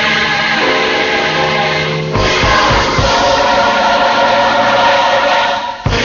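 Gospel music: a choir singing sustained notes with band accompaniment. A bass and drum beat comes in about two seconds in.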